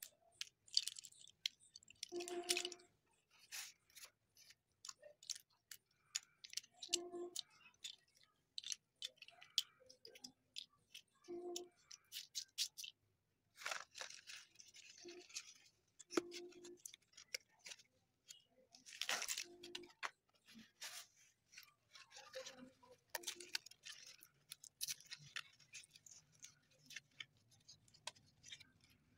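Slate pencils clicking and clattering against one another as a bundle is handled, with the crinkle and tearing of their brown paper packets and a few short squeaky tones among the clicks.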